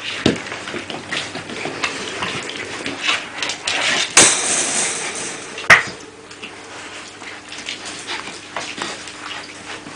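Metal wire puppy pen clinking and rattling as American Staffordshire Terrier puppies play and push against it. A run of small clicks, with a few sharper knocks; the loudest come about four and six seconds in.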